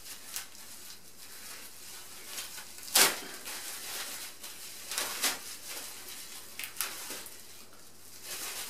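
Plastic packaging bags rustling and crinkling as they are handled, with a sharp crackle about three seconds in and smaller ones after it.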